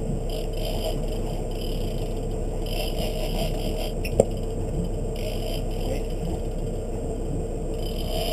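Steady hum of the fishing boat's engine running, with intermittent scraping and rattling from the rod and reel as an angler fights a large amberjack. A single sharp click comes about four seconds in.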